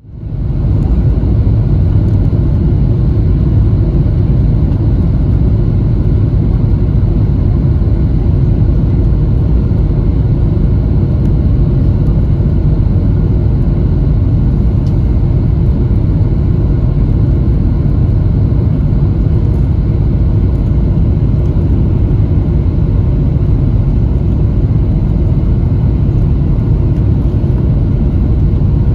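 Steady low rumble of airliner cabin noise inside a Boeing 737-700 descending on approach: its CFM56-7 engines and the airflow over the fuselage, with a faint steady hum above the roar. It fades in at the very start and then holds even.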